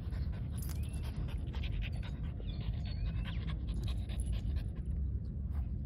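French bulldogs panting hard while wrestling, with quick irregular breaths over a steady low rumble.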